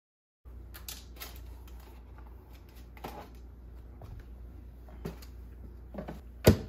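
A spatula tapping and scraping as chicken patties are turned over on a metal tray, a few light clicks over a steady low hum. Near the end, one loud metallic clunk as the tray is pushed back into the air fryer oven.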